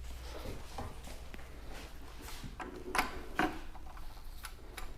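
Socket wrench with a 24 mm socket being worked on the oil filter cap: scattered light clicks and knocks, with two sharper knocks about three seconds in.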